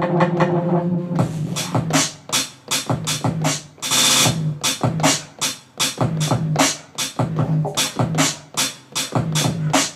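Electronic beat played on a Maschine Mikro pad controller: a held pitched sample stops about a second in, then a chopped drum-machine pattern of sharp drum hits and short low notes.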